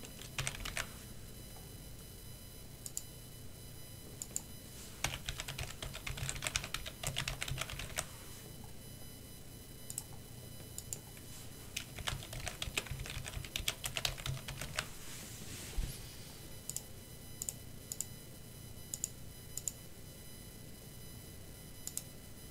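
Typing on a computer keyboard in three quick runs of keystrokes, with a few separate clicks in the pauses between.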